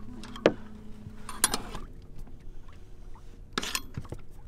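Sharp metallic clicks and scrapes of a screwdriver used as a lever to turn a shroud turnbuckle on a sailboat, tensioning slack rigging. A few separate knocks, the loudest about half a second in, with more around a second and a half and near the end.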